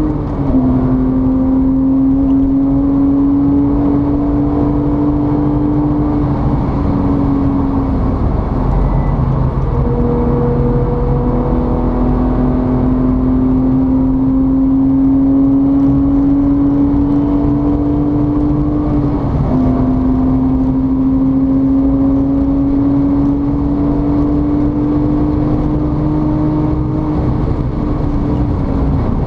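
A motor running steadily with a strong hum. Its pitch creeps slowly up and then drops back suddenly, three times, roughly every nine to ten seconds.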